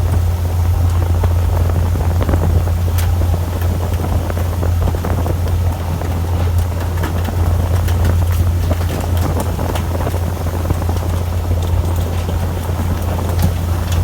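Fishing boat's engine running with a steady low drone, under wind and sea noise, with scattered short clicks and knocks.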